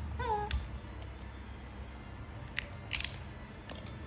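A baby macaque gives one short squeak that falls in pitch near the start. Chestnut shells crack and crunch as they are peeled apart by hand, with a sharp double crack about three seconds in.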